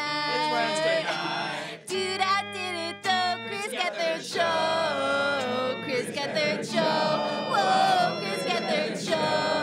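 Band music with several voices singing together over held low notes, pausing briefly a couple of times.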